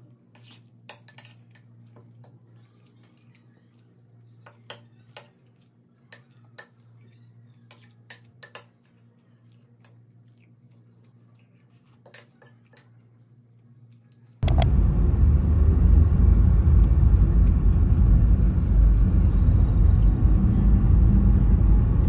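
Metal fork and spoon clinking and scraping on a ceramic plate while eating, in scattered single clicks over a low hum. About fourteen seconds in, a loud steady rushing noise cuts in suddenly and takes over.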